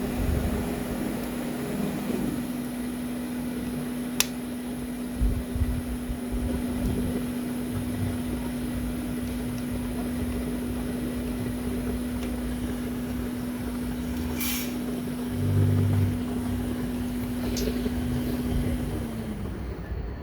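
Small electric blower or fan motor running with a steady hum, winding down in pitch and stopping near the end. A couple of sharp clicks and a brief low thump are heard over it.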